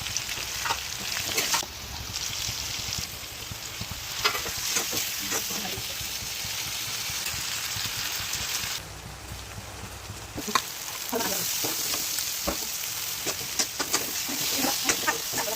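Pork frying in a pan, a steady sizzle broken by the clicks and scrapes of stirring. The sizzle drops away briefly about nine seconds in, then resumes.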